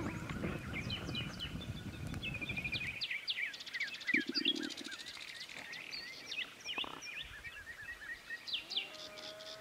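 Small songbirds chirping and singing throughout. A dense low rumbling noise fills the first three seconds and then stops abruptly, and a brief low hum sounds about four seconds in.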